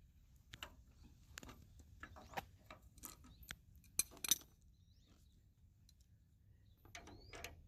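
Scattered metallic clicks and clinks of a lug wrench working a stubborn lug nut on a trailer wheel. The sharpest clinks come about three to four and a half seconds in.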